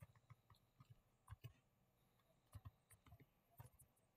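Faint, irregular computer keyboard keystrokes, a few taps at a time, against near silence.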